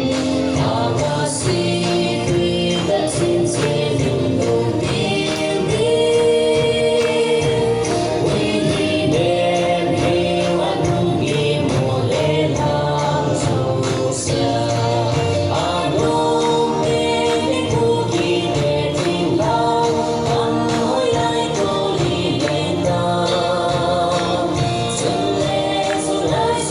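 Group singing with music and a steady beat of sharp clacks: the accompaniment to a Kuki bamboo dance.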